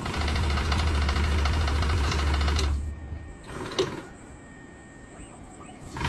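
Automated production-line machine running with a low hum and a fast, even mechanical clatter, which stops about three seconds in. A single sharp knock follows about a second later, then only faint factory background.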